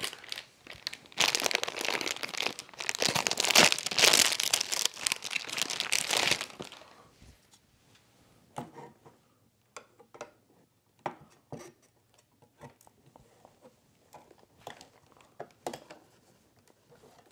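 Plastic anti-static bag crinkling for several seconds as a hard drive is unwrapped. After that come scattered light clicks and knocks as the 3.5-inch drive is handled and seated in the NAS drive bay.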